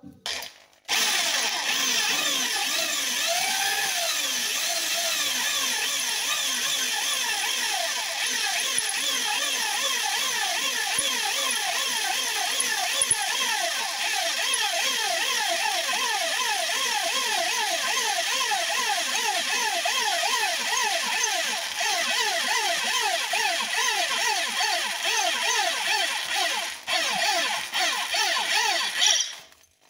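Electric drill boring into steel, running continuously with a squealing whine whose pitch wavers rapidly up and down. It starts about a second in, dips briefly near the end and then stops.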